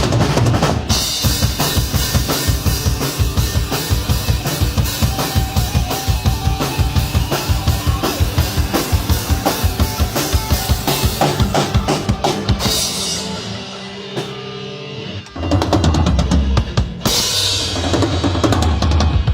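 Drum-heavy music with a fast, driving beat of kick and snare. It thins out and drops in level about two-thirds of the way through, then comes back in full a couple of seconds later.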